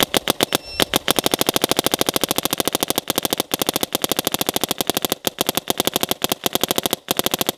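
Planet Eclipse Etha 2 electronic paintball marker firing a long rapid string of shots, about ten a second, with brief pauses about three seconds in and near the end. The marker is cycling without a lube and with its barrel iced over in sub-freezing cold.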